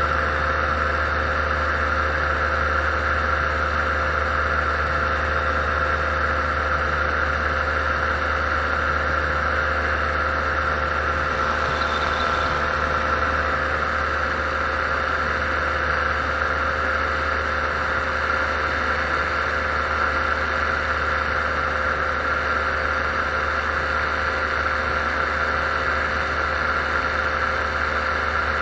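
Paramotor engine and propeller running at a steady cruise power, one unchanging drone with no change in pitch.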